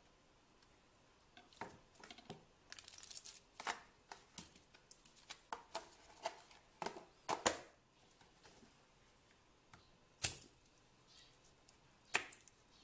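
Quiet handling sounds at a wooden cutting board: scattered taps, clicks and crinkles as a foil cheese wrapper and a plastic butter tub are handled. The sounds are busiest in the first two-thirds, and a kitchen knife is picked up with a couple of sharper knocks near the end.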